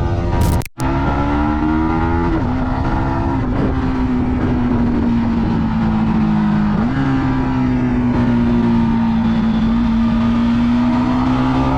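Yamaha MT-15 V2's single-cylinder engine and exhaust under way. The engine note climbs, then drops sharply twice, about two and a half and seven seconds in, as the rider shifts up, and holds fairly steady in between. There is a brief click and dropout just under a second in.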